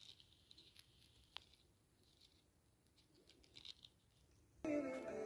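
Faint scratchy ticking and small clicks as a thumb rubs and flicks across the nubs of a soft rubber grooming brush. About four and a half seconds in, music with a melody starts suddenly and is much louder.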